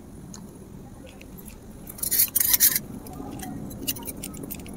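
A matchstick struck and flaring, a short scratchy hiss about two seconds in, to light a miniature clay wood stove. Around it, light clicks and taps of small sticks and a tiny pan handled on the clay stove.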